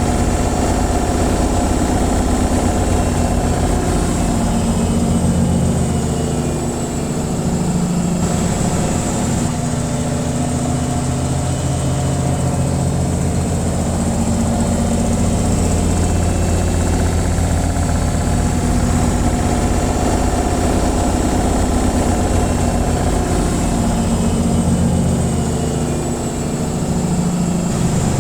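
Washing machine on its spin cycle: a steady motor hum with the drum's fast vibration.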